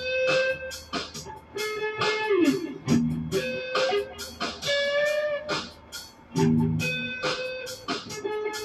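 Guitar music: single plucked notes, several bent up or down in pitch, over regular sharp strokes.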